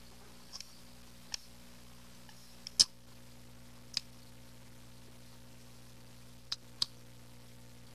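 Eating sounds from dry instant noodles eaten with wooden chopsticks: scattered sharp clicks and smacks, about seven in all, the loudest about three seconds in, over a low steady hum.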